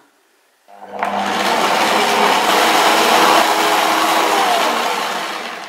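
Stand mixer motor running, its wire whisk beating a thick creamed butter, sugar and egg mixture in a stainless steel bowl. It starts about a second in, runs steadily, and fades out near the end.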